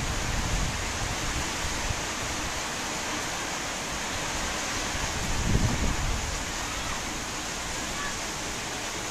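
Heavy rain pouring down steadily, an even hiss. Low gusts of wind rumble through it, strongest about five and a half seconds in.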